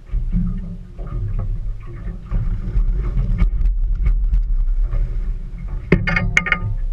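Steady low wind rumble on the boat-mounted camera's microphone, with water splashing and scattered knocks as a hooked small shark thrashes against the side of the boat while being gaffed. About six seconds in a sharp knock rings briefly with a metallic tone.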